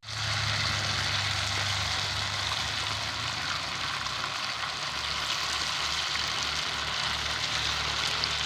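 Batter frying in hot oil in a pan, a loud, steady, crackling sizzle that starts abruptly.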